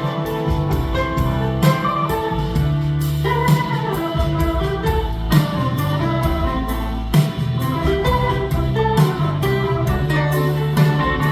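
Live rock band playing an instrumental break: an organ lead over bass, guitar and drums, with regular drum hits.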